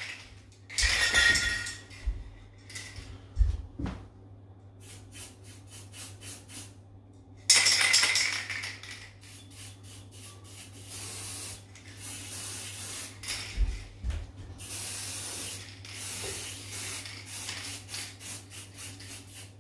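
Aerosol can of silver spray paint hissing in repeated bursts, some brief and some lasting a couple of seconds, with runs of quick clicking between them.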